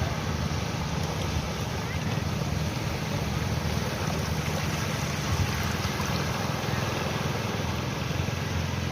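Sea waves washing steadily, with wind buffeting the microphone into a constant low rumble.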